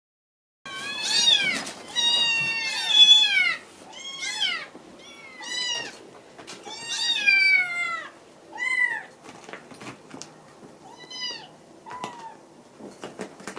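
Several two-month-old Japanese Bobtail kittens meowing, starting about a second in. The calls come thick and overlapping at first, then fewer and further apart. They are begging for their dinner.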